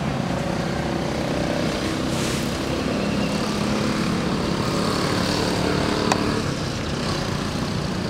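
Steady rumbling background noise with a faint hum, like a running motor, and a single sharp click about six seconds in.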